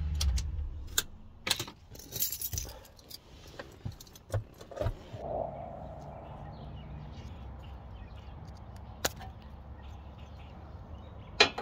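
Scattered clicks and short rattles of a plastic parking-assist sensor and its wiring connector being handled at a truck's front bumper, with a sharp click near the end. The truck's engine idles at the start, then drops away.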